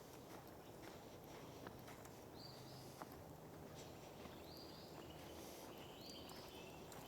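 A bird giving four short high calls, about two seconds apart, over quiet outdoor background with a few faint ticks.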